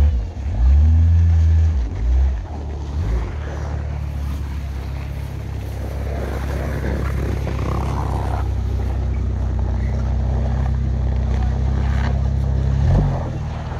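Suzuki Escudo's engine revving up and down in short bursts about a second in, then running in a steady low drone, revving again near the end.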